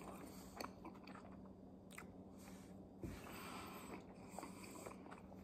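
Faint chewing of a mouthful of crispy fry bread taco, with small scattered mouth clicks over a low steady hum.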